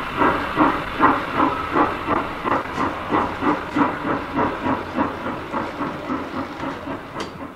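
Steam locomotive exhaust chuffing in a steady rhythm of about three beats a second, easing slightly in the last couple of seconds. It is the sound of a small tank engine moving off at low speed.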